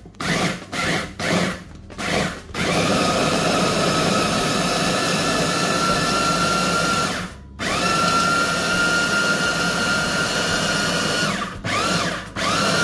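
Ambiano electric mini chopper grinding tangerine zest with sugar. It is pulsed in a few short bursts, then run twice for several seconds at a time, its motor whine rising as it spins up and then holding steady, with a brief stop between the runs and more short pulses near the end.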